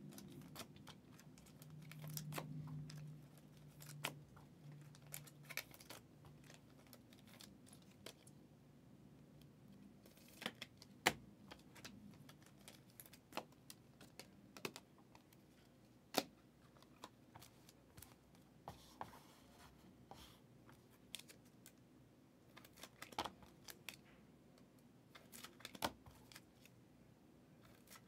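Faint, sparse keystrokes and clicks on a computer keyboard, one every second or so, with a soft low hum for a few seconds about two seconds in.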